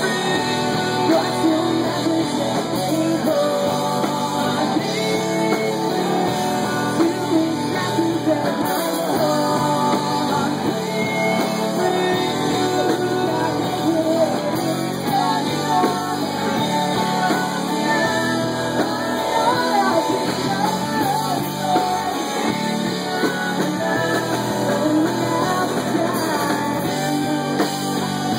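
A rock band playing live: electric guitar and a singer's voice over a full band, steady and loud throughout.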